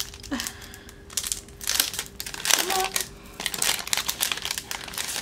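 Clear plastic sleeve crinkling as it is opened and sticker sheets are slid out, in irregular bursts that are busiest from about two to four seconds in.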